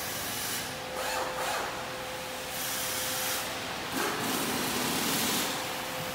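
Factory floor noise: a steady machine hum with several separate bursts of hissing.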